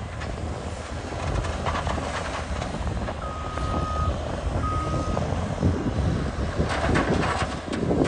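Cat crawler bulldozer's diesel engine running steadily, with its reversing alarm beeping twice in the middle as it backs up. Bursts of metallic clatter from the steel tracks come about two seconds in and again near the end.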